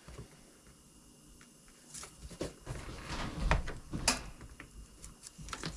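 Hands handling a cracked hard plastic part and pushing its pieces together: scattered light clicks, knocks and rustling, with one sharper click about four seconds in.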